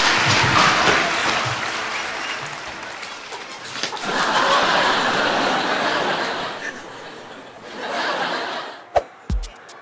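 Several men laughing hard together, in waves that swell and fade. A music beat comes in near the end.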